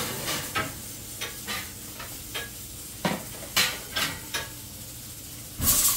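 Metal kitchenware clinking and knocking as a wire draining rack is handled on the counter beside the stove, with a louder brief clatter near the end, over a steady low hiss.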